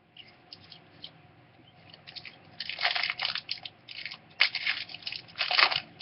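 Trading card pack wrapper being crinkled and torn open in several crackly bursts starting about halfway through.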